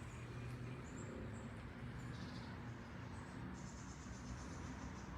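Small forest birds chirping faintly with short, thin, high calls, including a quick trill about two seconds in and a longer one past the middle, over a steady low rumble.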